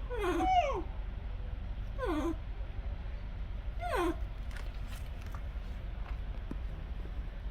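A pet monkey giving three short high calls, each sliding downward in pitch, about two seconds apart.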